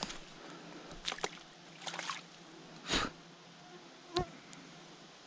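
Flying insects buzzing steadily, with a few short, sharp noises; the loudest comes about three seconds in.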